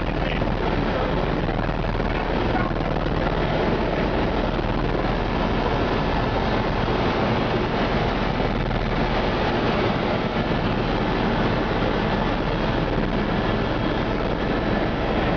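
Helicopter in flight, heard from inside the cabin: a steady, even din of engine and rotor noise with a strong low hum underneath.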